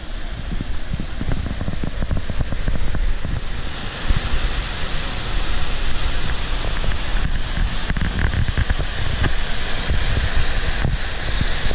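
Rushing water with wind buffeting the camera microphone; the water's hiss grows louder and brighter about three and a half seconds in.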